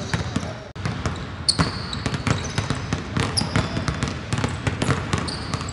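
Basketballs bouncing on a hardwood court in a steady run of dribbles, with short high sneaker squeaks from players cutting on the floor, in a large indoor arena.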